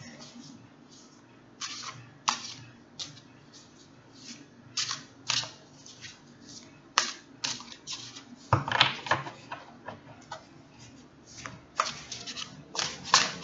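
Tarot cards being shuffled and handled: a string of irregular, crisp flicks and snaps, the loudest about two-thirds of the way through and at the very end.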